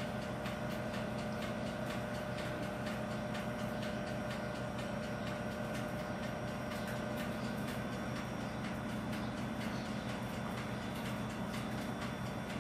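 A steady mechanical hum with faint, fast ticking running through it.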